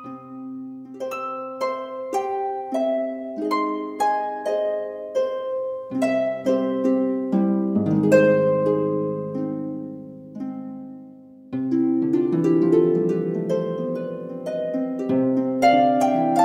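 Background music of plucked harp notes, arpeggios that swell into fuller, louder chords about halfway through.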